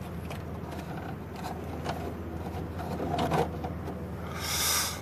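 Faint scrapes and clicks of hands working a wire loose from an old Pushmatic circuit breaker in an electrical panel, over a steady low hum. A brief rustling hiss comes about four and a half seconds in.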